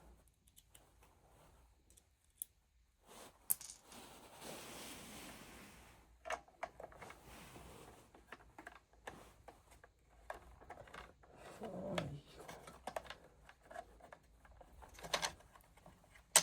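Irregular small clicks, taps and scrapes of hands and tools working on parts of an oil burner, with a short stretch of scraping about four seconds in.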